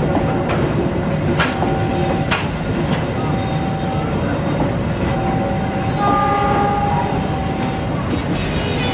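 Train of new K3 Premium economy coaches passing at speed: a steady rumble of steel wheels on the rails, with a few sharp clicks in the first few seconds.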